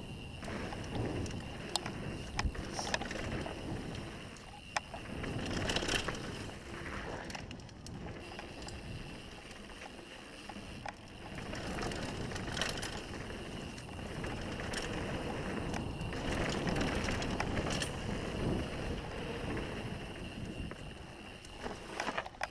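Mountain bike riding fast down a dirt trail: tyres rumbling over the packed dirt, with scattered clicks and knocks as the bike rattles over bumps.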